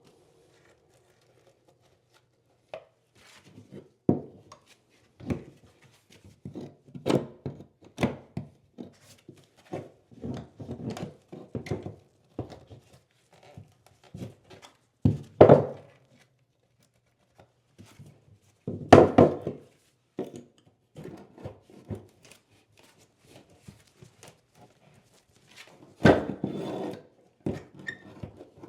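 Irregular knocks, taps and short scrapes of hand tools working on wood, with a few louder thunks.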